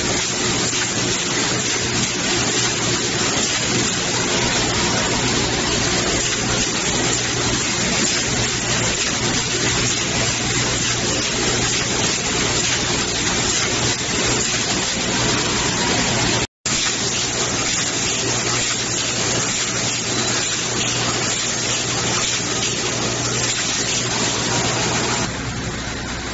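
Automatic steel wire mesh welding machine running: a steady loud rushing, hissing noise over a low hum. It cuts out for an instant about sixteen seconds in and drops somewhat near the end.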